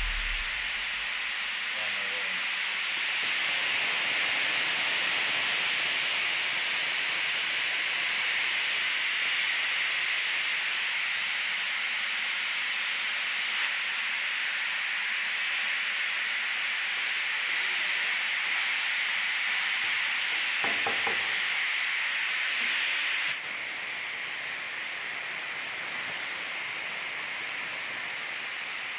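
Dried black peppercorns pouring from a hopper down the metal chutes of a spiral separator, a steady hiss of grains sliding on metal that drops in level about two-thirds of the way through. The separator is sorting the round peppercorns from stones, soil particles, pinheads and broken spike.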